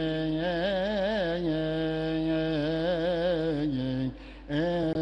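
A lone man's voice chanting a Coptic Orthodox liturgical reading, a slow melismatic line that wavers in ornamental turns around held notes. The chant breaks off briefly about four seconds in, then resumes.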